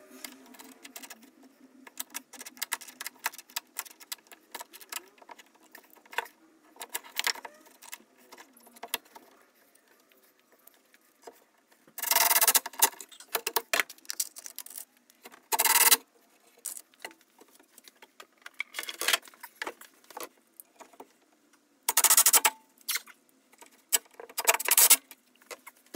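A cordless drill driving pocket-hole screws into a wooden brace in several short bursts, the first about halfway through, each screw pulled in within a second or so. Before the first burst, small metallic clicks and rattles of handling.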